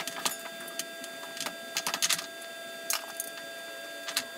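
Irregular light clicks and metallic knocks of a strut assembly with its lowering spring being worked up into a car's front wheel well, over a faint steady whine.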